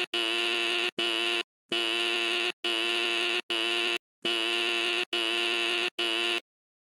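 Fire alarm sounding in the three-pulse evacuation pattern: three groups of three buzzing blasts, the third blast of each group shorter, with a brief pause between groups. It cuts off abruptly near the end.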